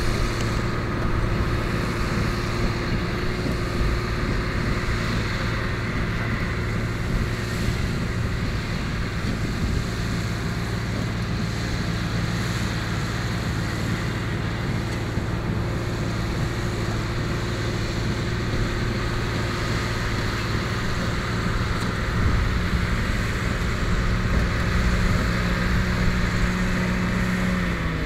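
Oliver 1950-T tractor's diesel engine running steadily under load while baling hay. Its pitch drops right at the end as the engine slows.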